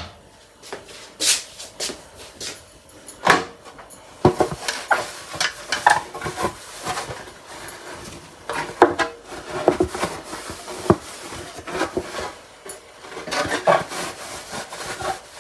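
A cloth dish towel wiping the inside of a kitchen drawer dry, with irregular rubbing strokes and a few sharper knocks against the drawer.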